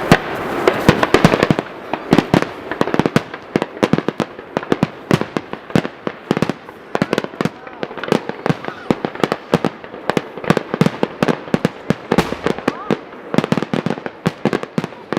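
Fireworks bursting in a rapid barrage: many sharp bangs and cracks, several a second, densest and loudest in the first couple of seconds.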